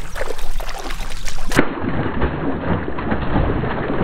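Irregular water splashing as a hooked bass thrashes at the surface right beside the boat.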